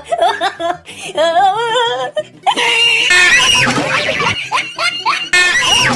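Wavering, wailing cries, then a run of short squealing cries, with music underneath.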